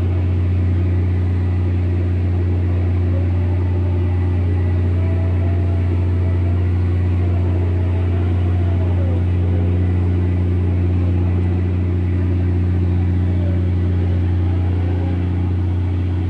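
Steady, loud low drone of a ship's diesel engine running at constant speed, its pitch unchanging.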